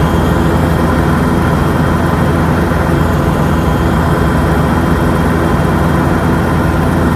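Yanmar YH6115 combine harvester's diesel engine running steadily while harvesting rice.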